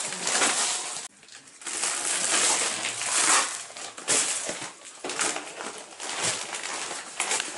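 Gift-wrapping paper crinkling and tearing in uneven rustling surges as a present is unwrapped by hand, with a brief lull about a second in.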